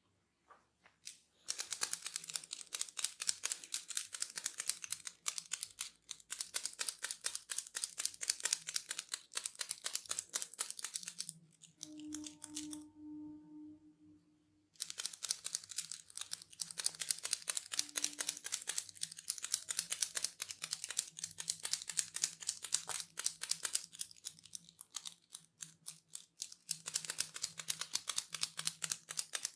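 Hair cracking: strands of hair pulled and twisted tight between the fingers, making dense runs of fast, sharp crackles. There is a pause of about three seconds roughly eleven seconds in, then the crackling resumes.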